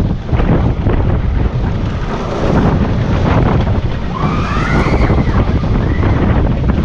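Wind buffeting the microphone with the rumble of an Intamin inverted roller coaster train running through its track at speed. A few short rising and falling squeals come about four to five seconds in.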